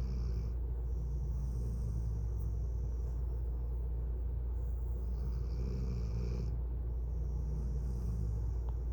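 A dog snoring in slow, even breaths, about three full breaths, each with a high hissing whistle and a low rumble, over a steady low hum.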